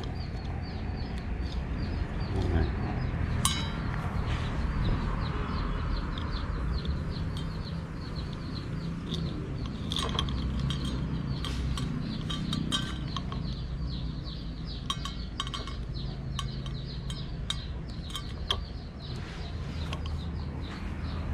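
Scattered small metallic clinks and clicks as nylon trimmer line is threaded through and tied onto a brush cutter's metal blade and cutter head, over a steady low background hum.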